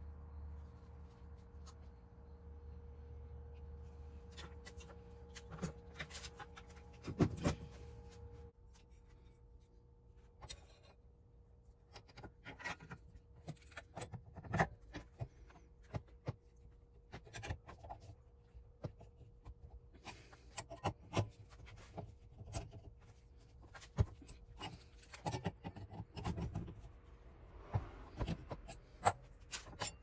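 Scattered clicks, scrapes and metal knocks of a flat steel mounting bracket being gripped with pliers and bent by hand in a bench vise, over a faint steady hum.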